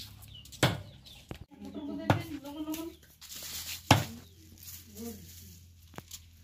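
Knife blade chopping raw chicken on a wooden block: a few sharp chops a second or two apart, the loudest about four seconds in. A chicken clucks in between.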